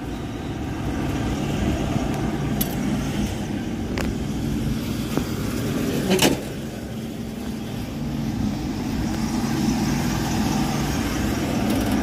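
Steady machinery hum of rooftop HVAC equipment running, with three sharp clicks or knocks.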